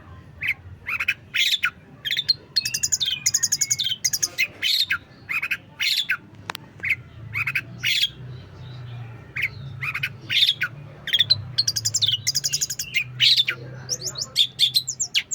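Long-tailed shrike singing a varied, mimicking song: a dense string of sharp chirps and squawks, broken by fast rattling trills twice.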